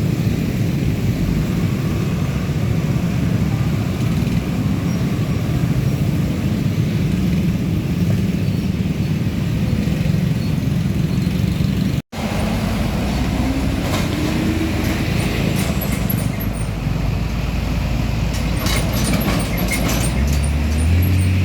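Heavy diesel trucks running past on the road, a steady low engine rumble. After a sudden break about twelve seconds in, another engine rumbles with scattered clicks and its note rises near the end as it pulls away.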